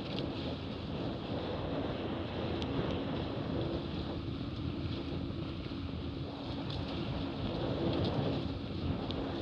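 Hobie 20 catamaran sailing fast: water rushing and spraying off the hulls, mixed with heavy wind noise on the microphone. A steady low hum runs underneath.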